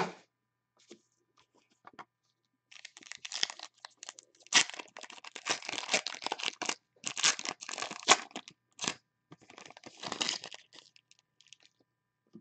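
Plastic wrapping and foil trading-card packs being torn, crinkled and handled as a fresh box of football cards is opened. A few light clicks come first, then about three seconds in a run of crackly tearing and crinkling starts that goes on for most of the rest, loudest in the middle.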